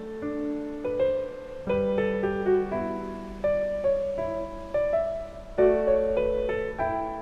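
Background piano music: a slow, gentle melody over held low notes.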